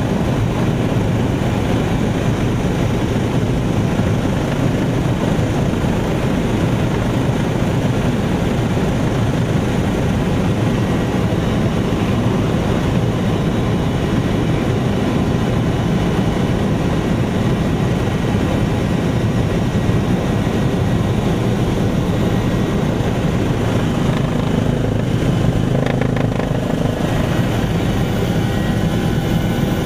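OH-58 Kiowa helicopter in flight, heard from inside the cockpit: the steady noise of its rotor and turbine engine.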